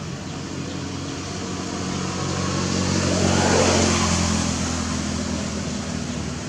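A motor vehicle going past: a low engine hum and road noise swell to their loudest about three and a half seconds in, then fade.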